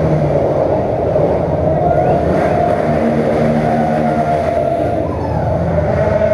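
Motorcycle and car engines running as the vehicles move slowly up a ramp inside a concrete multi-storey parking garage, a loud steady mix of engine notes.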